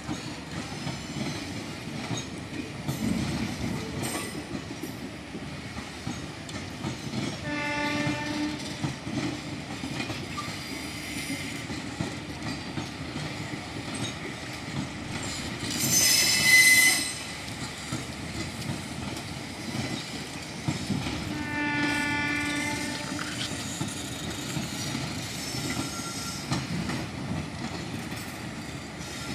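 Indian Railways passenger coaches rolling past, their wheels clattering over the rail joints. A horn sounds twice, briefly about eight seconds in and longer about twenty-two seconds in. A loud, high-pitched squeal, the loudest sound, comes about halfway.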